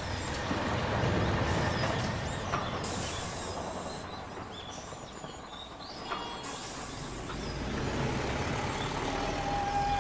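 City bus engine running at a stop, a steady low rumble, with hisses of compressed air about a second and a half in and again past six seconds.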